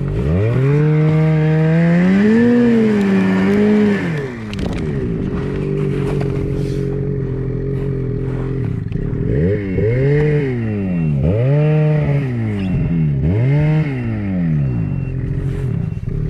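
Snowmobile engine revving under the load of towing a second sled by rope through deep snow: one long rev at the start, then four short throttle blips in a row about two-thirds of the way through, each rising and falling in pitch. A steady engine hum runs underneath.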